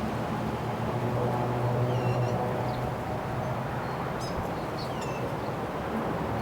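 Wind rushing over the microphone with a low steady hum underneath, and backyard birds giving a handful of short chirps, a couple falling in pitch, through the middle of the clip.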